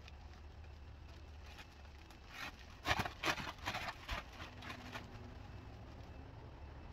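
Black plastic trash bag rustling and crackling as it is shaken open, in a quick flurry about two and a half seconds in that lasts under two seconds.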